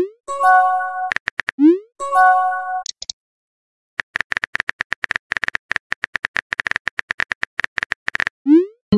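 Phone-style texting sound effects. Twice in the first three seconds a short rising swoop is followed by a short multi-tone chime as a message arrives. After a second's silence comes rapid keyboard tapping clicks for about four seconds, and another rising swoop near the end.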